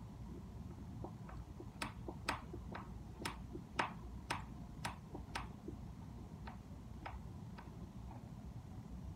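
Screws being unscrewed from a sliding glass door latch: a run of faint, sharp clicks about twice a second, growing weaker about five seconds in and stopping near the end.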